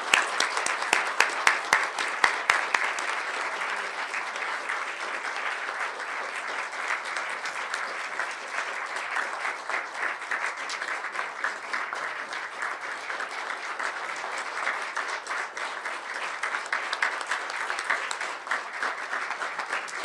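Audience applauding: a dense, steady round of clapping, with some louder individual claps standing out in the first few seconds.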